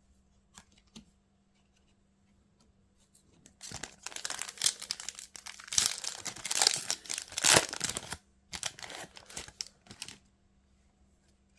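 A foil booster pack of trading cards torn open and its wrapper crinkled: quiet at first, then a long run of tearing and crinkling from about three and a half seconds in, a brief pause, and a shorter spell of crinkling.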